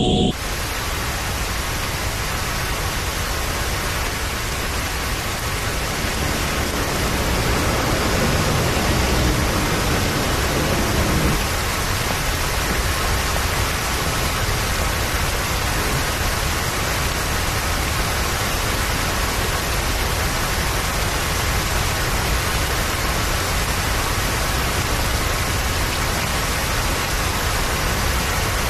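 Steady heavy rain, an even hiss of downpour that does not let up.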